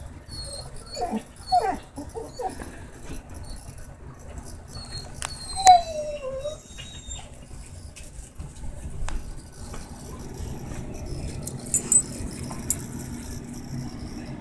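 Dog whimpering and yipping: a few short yips about a second in, then one longer whine falling in pitch near the middle, the loudest sound, with a few faint clicks later on.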